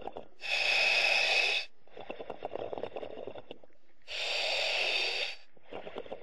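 An underwater diver breathing through a demand valve: two inhalations a little under four seconds apart, each a sharp hiss lasting about a second, each followed by a quieter crackling exhalation.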